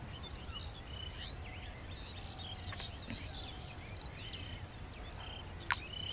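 Rural outdoor ambience: a steady high-pitched insect drone under many short, scattered bird chirps and whistles, over a low steady rumble. One sharp click sounds near the end.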